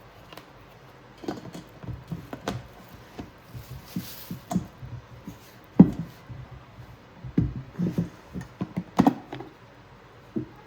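Stainless steel mixing bowls and their lids being handled: irregular knocks, taps and light clinks, a few with a brief metallic ring. The loudest knock is about six seconds in, and there is a quick cluster near nine seconds.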